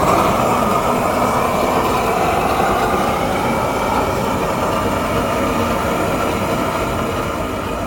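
A 500,000 BTU propane weed-burner torch firing into a fire-brick forge: a loud, steady rush of the burning gas jet, easing slightly toward the end.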